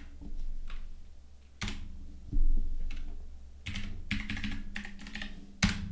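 Typing on a computer keyboard: scattered single keystrokes, then a quick run of several a little under four seconds in.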